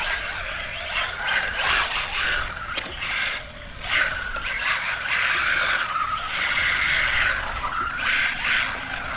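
Brushless electric motor of an MJX Hyper Go H14MK RC truck whining up and down with the throttle, its street tyres scrubbing as the truck slides.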